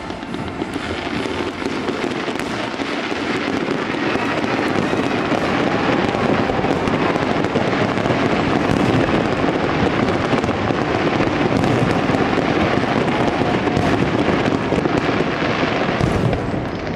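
Aerial fireworks show: shells bursting and crackling in a dense, continuous run, building louder over the first few seconds.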